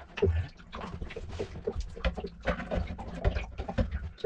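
Irregular small clicks, taps and knocks of a threaded metal rod and a rudder angle sensor's arm being handled and fitted into place.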